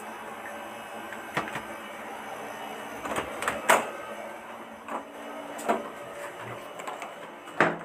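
Handling noise of a phone being carried against fabric: scattered rubs, scrapes and knocks, the loudest about three and a half seconds in and a cluster near the end, over a steady background hum.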